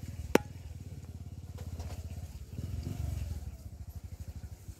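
A small engine running steadily with a rapid, even low pulse that swells briefly about three seconds in. A single sharp click sounds about a third of a second in.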